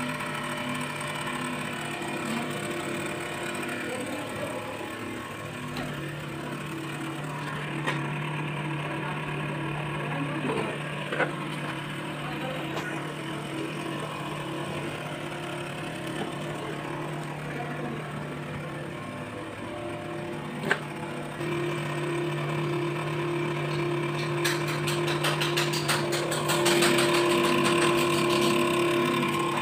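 Hydraulic power pack of a concrete cube compression testing machine running with a steady hum while the cube is under load, with a few sharp clicks. It gets louder near the end.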